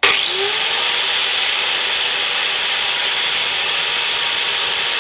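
Angle grinder fitted with an 80-grit flap disc spinning up, its pitch rising briefly, then running steadily as it grinds the steel edge of a lawnmower blade: a constant motor whine under harsh grinding noise. The edge is being ground back to the lowest point of a large nick.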